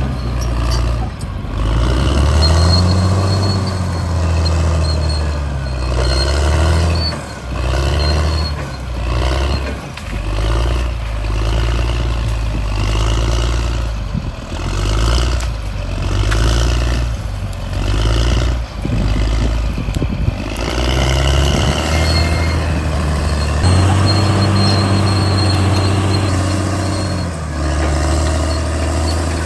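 Caterpillar D6R bulldozer's diesel engine running loud under load, its pitch stepping up and down as the machine works.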